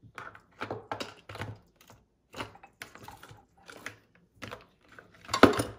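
Stainless steel measuring cups clinking and tapping against each other and the steel mixing bowl, an irregular series of small knocks with a louder clank near the end.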